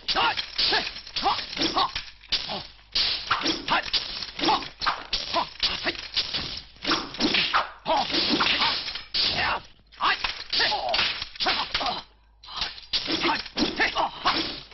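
Kung-fu film fight sound effects: a fast run of punch and kick whacks and swishing whooshes, several a second, with a few short cries among them and a brief lull near the end.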